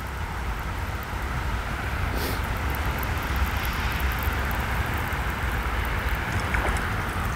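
Steady wind rumble on the microphone over an even hiss of rain falling on water.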